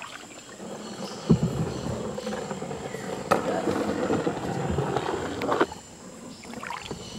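Canoe paddle strokes on a wooden canoe: three knocks about two seconds apart as the paddle strikes the hull, with a water swish between them.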